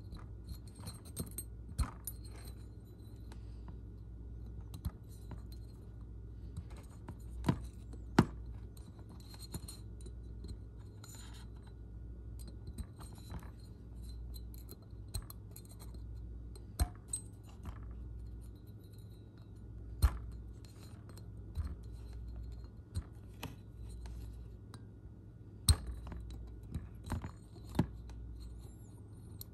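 Small screwdriver scraping and clicking against a spiral lock as it is worked around into the wrist-pin groove of an aluminium piston: scattered sharp metallic clicks with light scratching between them.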